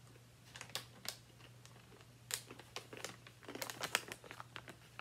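Crinkling of a foil-lined Flipz pretzel snack bag as it is handled and lifted, with scattered sharp crackles that crowd together shortly before the end.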